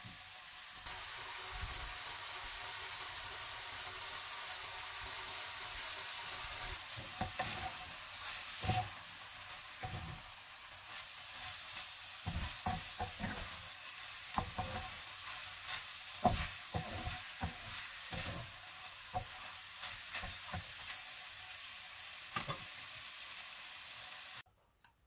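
Ground meat with diced peppers and onion sizzling steadily in a frying pan, with a wooden spatula stirring it and knocking and scraping irregularly against the pan from about seven seconds in. The sizzle cuts off suddenly near the end.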